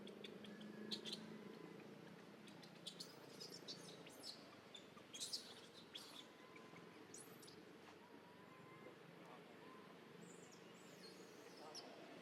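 Small birds chirping: scattered short, high calls, some sweeping up and down, over a faint steady low hum.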